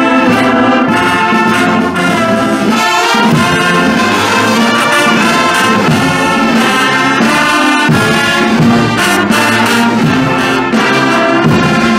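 Brass band of trumpets, baritone horns and sousaphones playing a tune together, loud and continuous.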